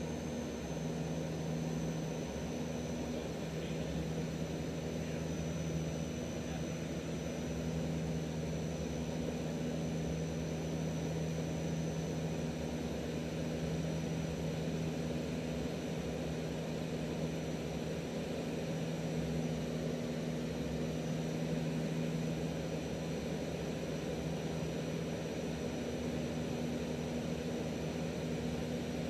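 Canadair CL-415 water bomber's twin turboprop engines heard from inside the cockpit: a steady drone with an even, low propeller hum and a faint high whine.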